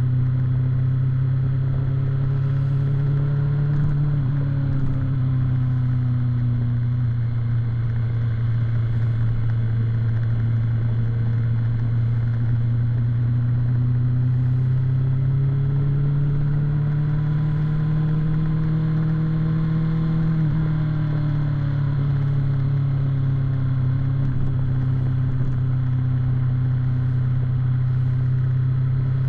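BMW S1000 sportbike's inline-four engine running at steady highway revs, easing off about four seconds in, then climbing slowly and dropping quickly about twenty seconds in as the throttle is rolled off.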